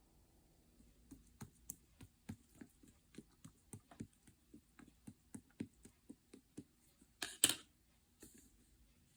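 Translucent slime mixed with clay being pressed and poked by hand, making a run of small clicking pops about three a second, then a louder, longer squelch near the end.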